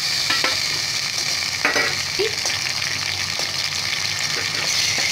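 Sliced onions frying in hot oil in a metal pan, a steady sizzle, as ground green masala paste goes into the oil. A few light clicks of a spoon against the pan break through the sizzle.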